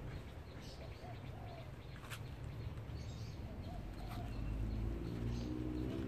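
Doves cooing in the background: short, low coos repeated every second or so over a steady low rumble.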